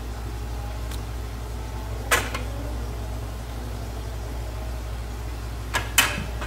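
A steady low hum, with a metal spoon knocking sharply against the food processor's plastic bowl about two seconds in and twice in quick succession near the end, as tahini is spooned in.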